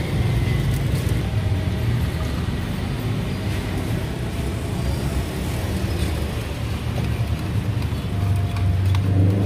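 Steady rumble of passing road traffic, with the low drone of vehicle engines rising and falling slightly.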